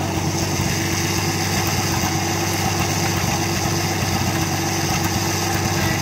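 Engine of an old trailer-mounted circular sawmill's power unit running steadily, with no log being cut.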